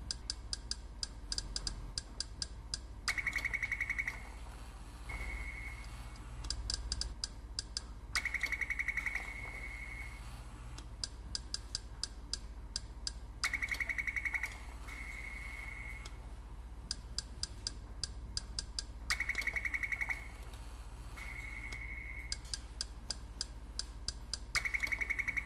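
Electronic feedback sounds from a chimpanzee's touchscreen memory test: a steady beep held about a second, now and then two in a row, then a run of sharp clicks several a second. The pattern repeats every five to six seconds over a low steady hum.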